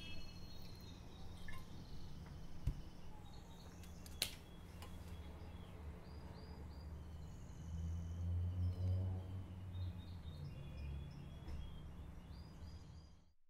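Room ambience with a low steady hum and small birds chirping now and then. Two sharp clicks sound, the louder about four seconds in, and a low rumble swells for about a second around eight to nine seconds in.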